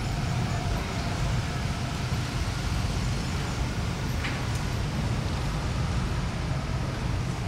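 Steady low rumble of outdoor background noise, with no single sound standing out.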